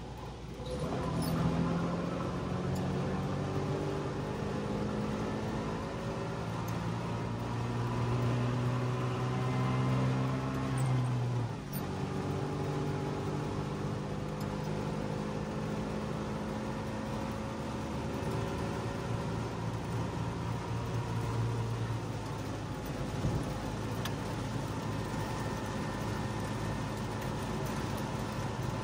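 Trabant 601's two-stroke, two-cylinder engine heard from inside the car as it pulls away and accelerates. The engine note rises steadily, drops at a gear change about twelve seconds in, then climbs again and settles at a steady cruise.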